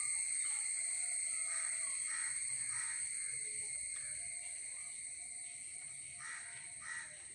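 Crows cawing repeatedly over a steady high-pitched drone of insects, the whole gradually fading.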